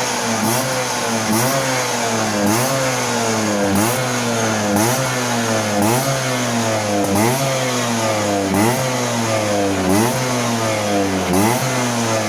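Vespa PTS smallframe two-stroke single-cylinder engine being blipped over and over, about once a second, each rev rising sharply and falling back to idle. It has a crisp, crackly exhaust note from a tuned engine.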